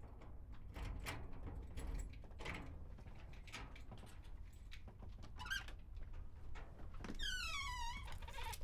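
Quiet scattered knocks and clicks, then a single wavering squeak that falls in pitch, about seven seconds in.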